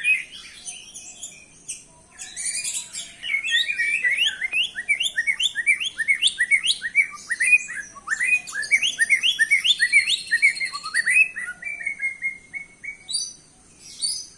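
White-rumped shama (murai batu) singing: a long, fast run of repeated upward-sweeping whistled notes, about three a second, running into a string of short level notes near the end.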